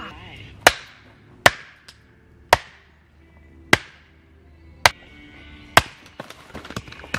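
Hatchet chopping into a log standing on a chopping block: six sharp wooden strikes about a second apart, splitting the log into kindling. A few lighter knocks follow near the end.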